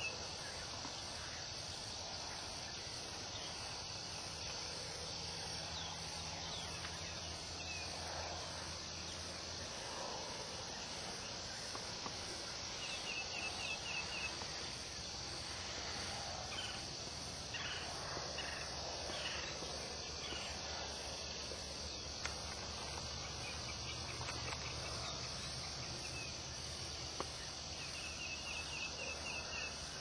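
Evening outdoor ambience: a steady insect hiss over a low steady hum, with a short, rapid trilled call repeated three times about fifteen seconds apart and a few faint chirps in the middle.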